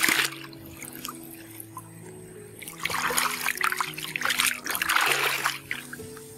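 Water splashing in shallow field water around a bamboo plunge basket as it is pressed into the water and worked by hand: one sharp splash at the start, then a few seconds of loud, continuous splashing beginning about three seconds in. Background music with steady held notes runs underneath.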